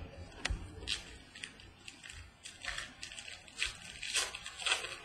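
Foil wrappers of 2014 Donruss baseball card packs crinkling as they are picked up and handled, in a series of short rustles that come thicker in the second half.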